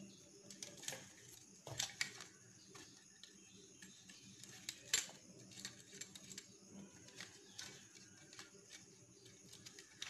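Faint clicks and rustling of hands working copper wires on a plastic switch-socket board: the neutral wire and the indicator lamp's wire being twisted together and fitted into a terminal. The sharpest clicks come about two seconds in and again near five seconds.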